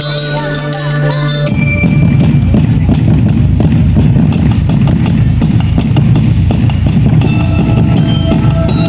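Marching band playing: a held low note under glockenspiel-like bell tones, then about a second and a half in the drumline comes in loudly with bass drums and snares, with bell tones returning near the end.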